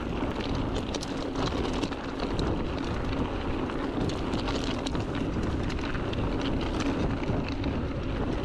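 Wind buffeting a handlebar-mounted camera's microphone while a mountain bike rolls over a gravel track, the tyres crunching and the bike rattling with many small clicks.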